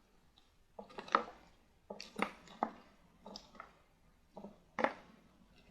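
Short taps and scuffs of small objects being handled on a tabletop, about nine in all, coming in small clusters. The loudest fall about a second in, around two seconds in, and near the end.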